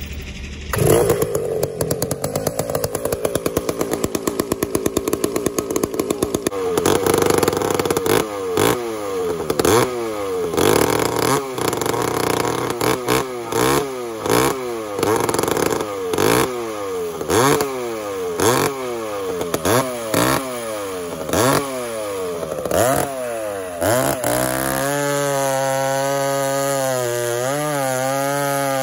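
Vintage two-stroke chainsaw that has sat for weeks being pull-started, catching about a second in and running unevenly for a few seconds. It is then revved again and again, about once a second, and held at a steady speed near the end.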